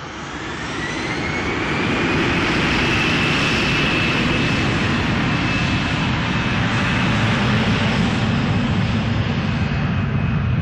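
A twin rear-engined jet airliner's engines spooling up for takeoff. A whine rises in pitch over the first couple of seconds, then holds steady above loud, rough engine noise.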